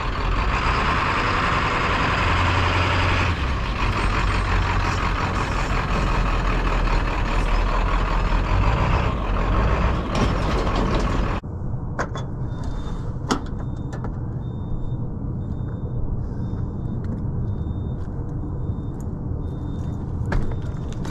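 Diesel pickup truck towing a trailer driving past, engine running with a heavy low rumble. About eleven seconds in it cuts off abruptly to quieter open-air background with a few sharp knocks and faint, evenly spaced high beeps.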